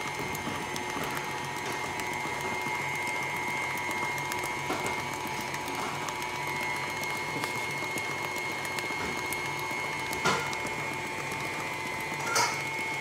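KitchenAid stand mixer running steadily with a constant motor whine and gear hum, its flat beater churning cake batter in a stainless steel bowl. Two short knocks come near the end.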